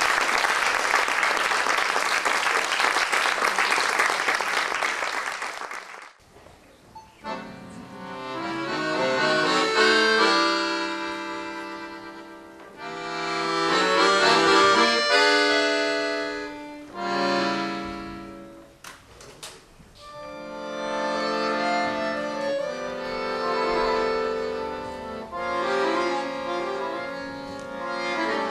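Audience applauding for about six seconds, cut off abruptly. After a short gap, an Excelsior piano accordion starts a piece, playing chords and melody in phrases that swell and fade.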